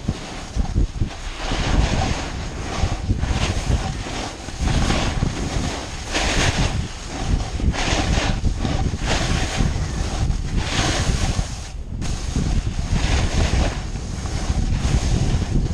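Wind buffeting the microphone of a snowboarder's body-mounted camera at speed, with the hiss of the snowboard carving across spring snow swelling and fading every second or two.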